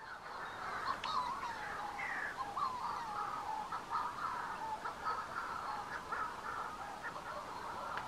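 Many Manx shearwaters calling over one another in a continuous chorus of overlapping calls.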